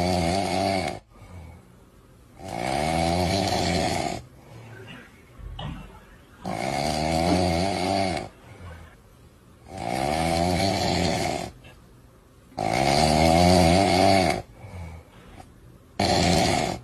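Snoring: long snores of about one and a half to two seconds each, coming every three and a half to four seconds, five in full and the tail of another at the start.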